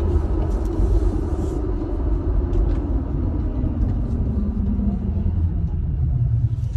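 Road vehicle driving, heard from inside the cabin: a steady low road and engine rumble, with a tone that falls gradually as the vehicle slows.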